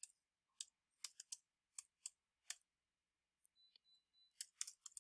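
Faint computer keyboard keystrokes: scattered single taps as a web address is typed, with a pause of nearly two seconds in the middle.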